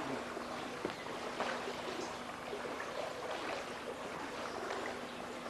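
Water splashing and paddle strokes around inflatable boats being paddled through floodwater. A faint steady hum runs underneath and breaks off for a couple of seconds in the middle.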